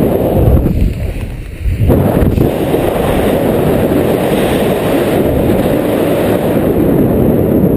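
Wind noise from the airflow of flight buffeting a camera microphone under a paraglider: a loud, low, ragged noise that drops away briefly about a second in.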